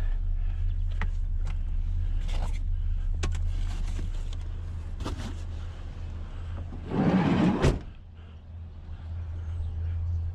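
Steady low hum of a running vehicle, with scattered clicks and knocks of scrap being handled. About seven seconds in comes a loud rush lasting under a second that ends in a sharp clack.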